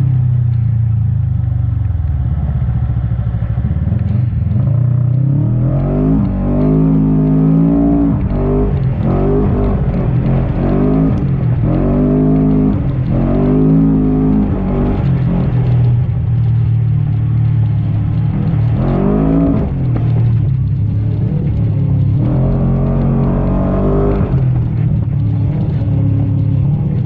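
Segway Villain side-by-side engine revving up and down over and over as it is driven hard through sand, its pitch climbing and dropping with each burst of throttle over a steady low running note.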